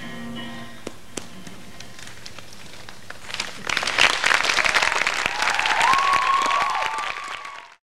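Audience applause that swells from about three seconds in, after the last guitar notes fade, with whoops near the end; it cuts off suddenly.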